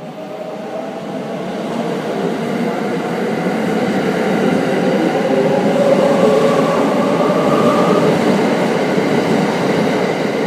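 683-series limited express electric train running past close by, its rail and wheel noise building over the first few seconds and then staying loud and steady, with a faint whine in it.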